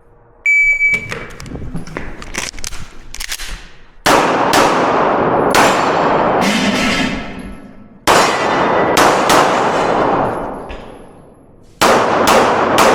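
IPSC shot timer's start beep, a short high tone, then a competition handgun firing a stage string. The first shots come quick and quieter, then louder shots follow in pairs and small groups with pauses between, each trailing a long echo.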